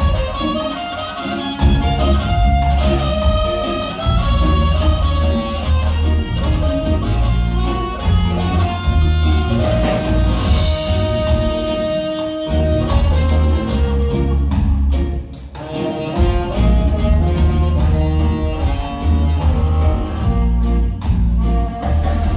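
Live band playing an upbeat ska groove on electric guitar, keys, bass and drum kit. A harmonica plays a lead of long held and bent notes over it.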